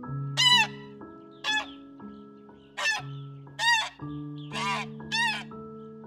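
Black swans calling: six short, high bugling notes, each rising and falling, about one a second, the fifth breathier than the rest. Soft background music with held notes plays underneath.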